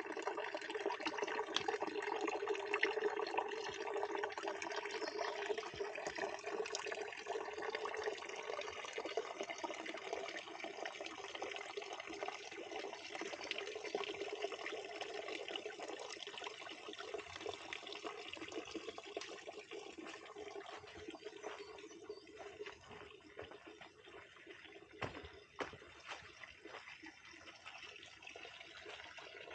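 Water running steadily from a small spring, starting suddenly and growing gradually fainter.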